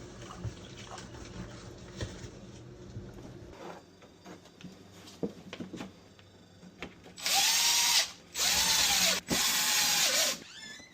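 Power drill run in three short bursts, its motor winding up and down each time, as when driving screws back in after a refrigerator water-line repair. Before it come a low hum and scattered light clicks of handling.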